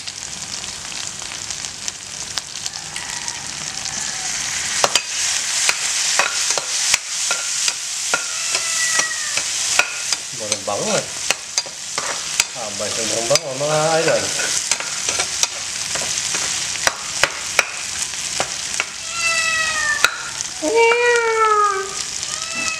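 Curried African giant snails with onions and green peppers sizzling in a frying pan, a metal ladle scraping and clacking against the pan as they are stirred.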